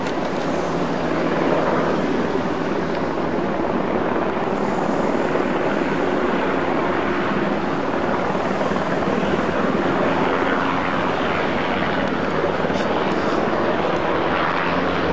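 News helicopter flying low overhead, its rotor and engine making a loud, steady noise.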